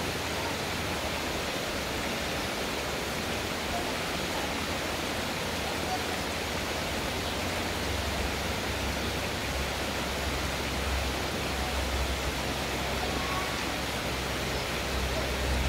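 Steady rushing of a river's flowing water, an even hiss with no pauses. A low rumble underneath grows stronger about halfway through.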